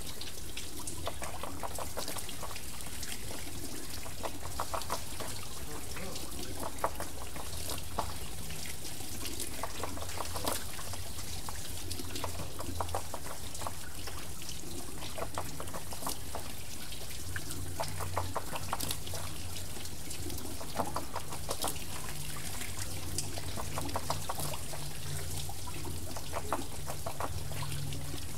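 Temple water wheel turning, water pouring and trickling off its paddles in a steady, uneven splashing, with a low steady rumble underneath.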